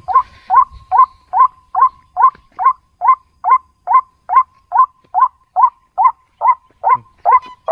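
White-breasted waterhen (ruak-ruak) calls repeated in an even, unbroken series, a short note about two and a half times a second, played from a battery-powered electronic bird caller used to lure the birds.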